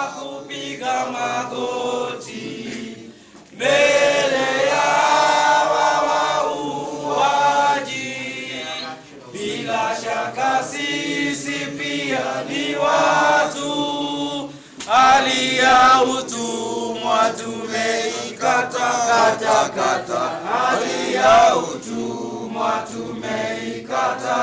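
A group of voices singing together without instruments, in a chanting style. It grows louder about three and a half seconds in.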